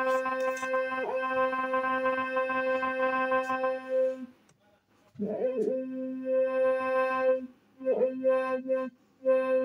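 An electronic instrument holds one steady, bright note with a deep octave beneath it, playing in long phrases. It stops a little after four seconds in and comes back about a second later with a short wavering slide into the note. It cuts out again near seven and a half seconds, gives a brief blip near eight, and resumes just after nine.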